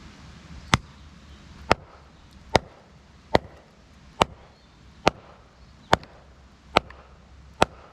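Firewood being split with a hatchet: nine sharp, evenly spaced strikes, a little more than one a second.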